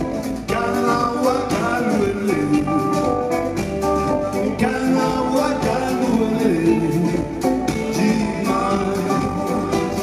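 Live band music: a man singing over electric guitar, with a steady beat.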